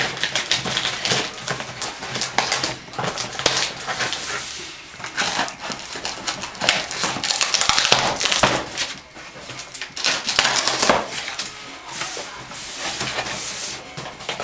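Cardboard box being opened and its contents handled: flaps bent back and hands rummaging inside, a busy, irregular run of crackling, scraping and rustling.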